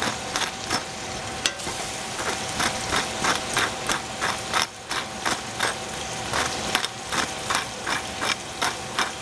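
Pepper mill being twisted over a pot of chard, grinding in short crunching strokes about three a second, with a short pause around two seconds in.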